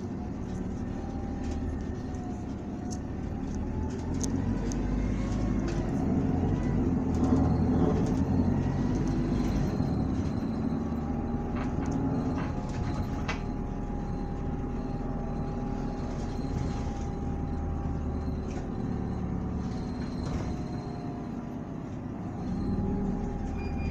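Interior running sound of a 2019 Isuzu Erga city bus with its four-cylinder diesel engine: a steady engine drone under a whine that rises and falls in pitch. The bus pulls harder for a few seconds about a quarter of the way in, then settles to cruising.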